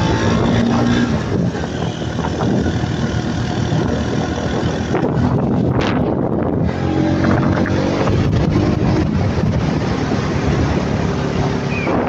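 Motorcycle engine running as the bike rides along, with wind noise on the phone's microphone.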